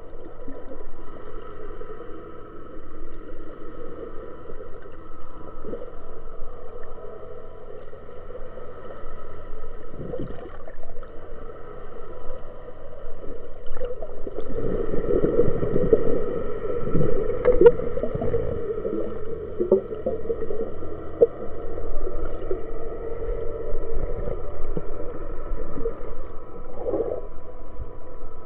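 Steady machine hum with several held tones, heard underwater through the water with a churning background. It swells louder for a few seconds in the middle, with a few short knocks.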